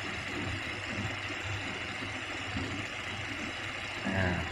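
Three electric misting pumps running together: a steady hum with an even hiss over it.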